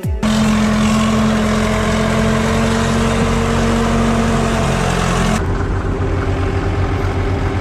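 Heavy machinery's diesel engine running steadily at a constant pitch, under a loud hiss. About five seconds in, the hiss cuts off suddenly and the engine drone goes on.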